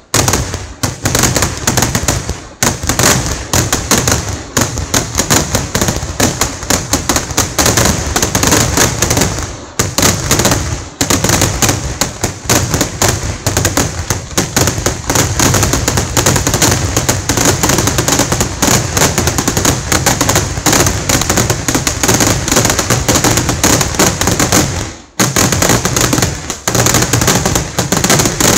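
Kerala temple fireworks (vedikkettu): a dense, nonstop barrage of loud firecracker and shell explosions going off in rapid succession, easing briefly about ten seconds in and again near the end.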